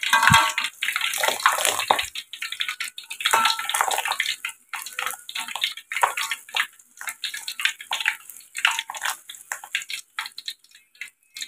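Batter-coated young banana leaf deep-frying in hot oil in a wok: sizzling with a dense, irregular crackle of pops that grows sparser near the end.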